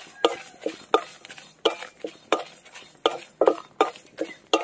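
A spatula knocking and scraping against a dry metal kadai while stirring dried red chillies and panch phoron being dry-roasted without oil, in regular strokes about two a second.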